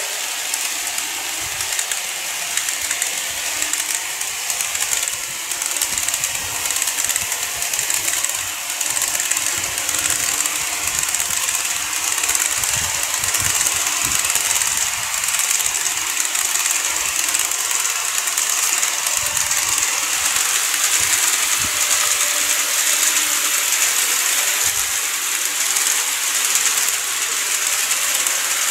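Model electric trains (a KATO E231 series and a TOMIX 103 series) running on the layout track: a steady, dense rattle of small wheels on rail and the hum of their motors.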